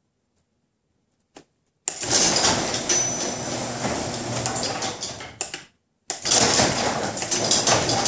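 Electric garage door opener raising a sectional garage door: a click, then from about two seconds in a loud steady motor hum with the rattle of the door panels rolling up, which drops out briefly near six seconds and resumes.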